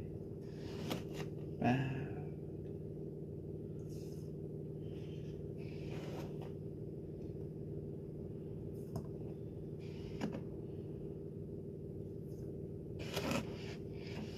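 Metal spoon stirring and knocking in a plastic pitcher: a few faint, scattered scrapes and taps, the clearest about two seconds in and near the end, over a steady low hum.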